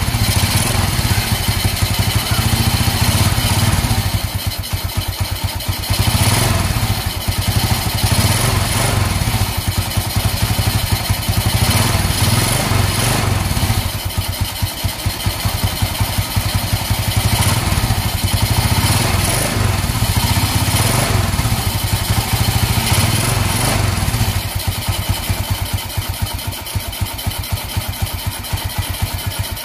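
Motorstar 125 motorcycle's single-cylinder four-stroke engine running steadily at idle.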